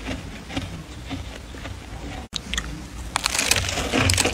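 Freezer frost and its plastic bag crunching and crackling as they are handled, in short sharp crackles. A brief dropout comes about halfway through, and then the crunching grows denser and louder.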